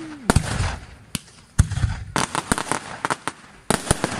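Aerial fireworks bursting: a string of sharp bangs, some trailing off in a low rumble, with quick runs of crackling reports about two seconds in and again near the end.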